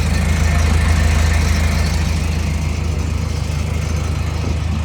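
Hitachi ZX250-5 excavator's diesel engine idling steadily, with a strong low hum.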